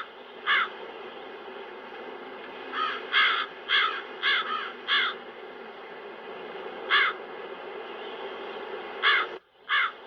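Crows cawing: a single caw, then a quick run of about five caws, then a few single caws, over a steady wind sound that cuts out briefly near the end.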